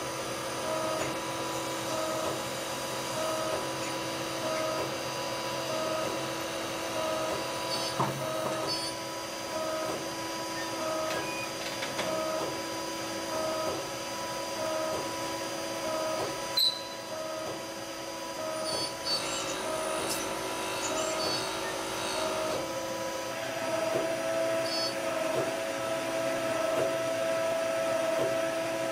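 CNC lathe running while it drills and turns a metal bar: a steady machine hum and whine with several held tones, one tone pulsing a little faster than once a second. A sharp click comes about halfway through.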